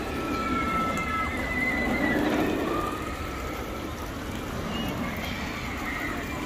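Outdoor crowd hubbub with distant drawn-out voices and calls gliding up and down above a steady wash of noise.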